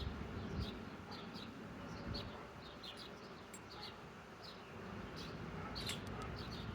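Small birds chirping repeatedly in short calls, over a low, steady background rumble.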